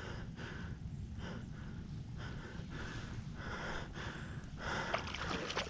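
Wading footsteps splashing through shallow, flooded grass, an even rhythm of about one step every two-thirds of a second.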